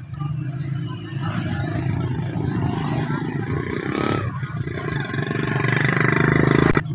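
A small motorcycle engine running close by, getting louder in the last couple of seconds, over the murmur of a crowd. The sound cuts off abruptly just before the end.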